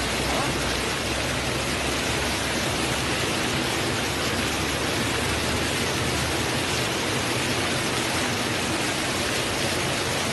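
Torrential rain pouring down, with water streaming off rooftops and running along the street: a steady, dense hiss.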